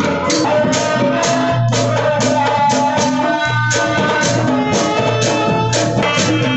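Sundanese kuda renggong procession music: drums keep a steady beat of about two strikes a second under sustained melodic instrument lines.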